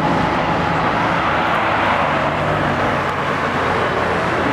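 Bugatti Veyron's quad-turbocharged 8.0-litre W16 engine as the car drives past: a steady engine note under a rush of noise that swells to a peak about halfway through.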